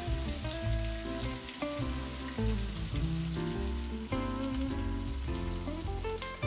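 Whole black pomfret shallow-frying in sesame oil in a pan, sizzling steadily, under background music.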